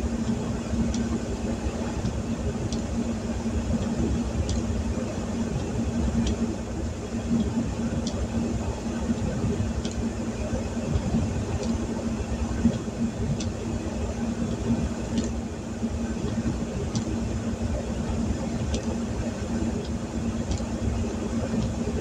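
Steady hum of a vehicle idling, heard from inside the cab during heavy rain, with rain on the roof and windshield, and a faint tick about every two seconds.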